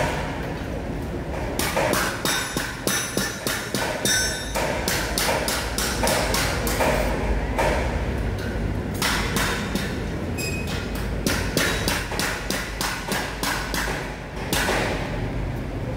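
Repeated sharp metal knocks and taps, several a second, with a couple of short pauses and some brief metallic ringing: hammering and banging on metal in a truck repair shop.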